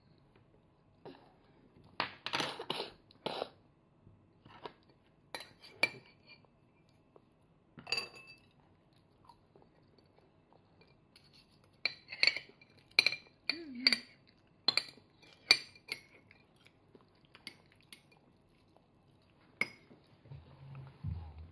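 Metal fork and spoon clinking and scraping against dishes as a toddler eats: scattered short clinks, thickest in a run of strikes in the middle of the stretch.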